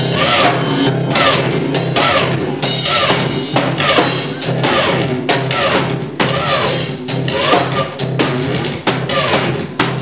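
Live rock band playing: electric guitar over a drum kit keeping a steady beat, heard from among the audience.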